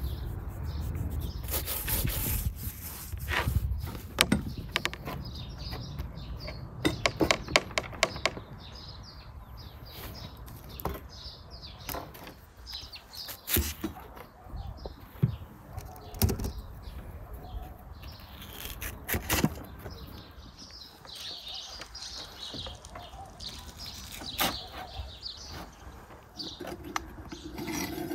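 Scattered clicks and knocks of hands, knife and long metal skewers handling food on a wooden table as raw potatoes and lamb ribs are pushed onto the skewers. Birds chirp in the background.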